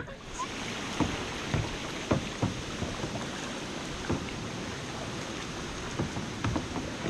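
Canoe paddles dipping and splashing in river water, with irregular splashes over a steady wash of moving water.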